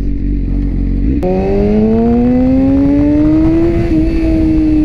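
BMW S1000RR's inline-four engine heard from the rider's seat with wind rushing past. It runs at low revs at first, then about a second in it pulls steadily up through the revs for a couple of seconds, dips briefly, and eases off slowly under a lighter throttle.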